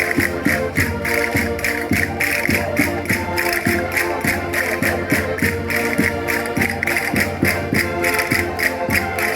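Concertinas playing a lively dance tune in sustained, chord-like tones, over a fast, steady beat of sharp percussion.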